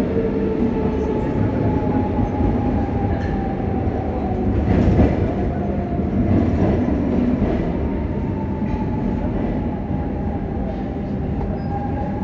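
Lisbon Metro train running through a tunnel, heard from inside the carriage: a steady rumble of wheels on the track with a steady whine above it and a few light clicks.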